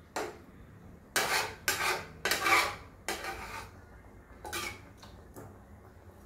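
Metal spoon stirring thick mutton curry in a pressure cooker, scraping against the pot's side and bottom in a series of short strokes. The loudest come between about one and three seconds in.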